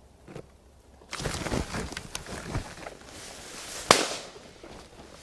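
Close rustling and crackling of leafy brush and stems against a head-mounted camera as the hunter turns in his bushy hide. There is a sharp knock about four seconds in.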